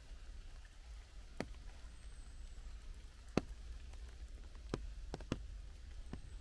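Rain in woodland: water drops falling from the wet tree canopy, heard as about six sharp, irregular taps, the loudest about three seconds in, over a low steady rumble.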